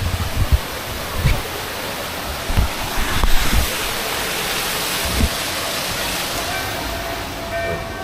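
Steady rushing noise with irregular low thuds in the first few seconds, typical of wind buffeting the camera's microphone.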